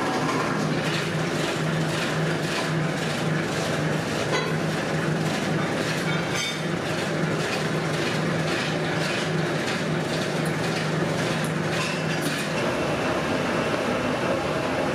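Rubber extruder machine running steadily, a low hum with a regular clatter about twice a second. About twelve seconds in, the hum changes to a higher pitch.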